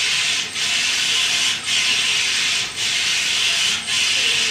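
Fully automatic saree rolling machine running: a steady rubbing, hissing noise that dips briefly about once a second, four times, in an even rhythm as its moving part works over the saree.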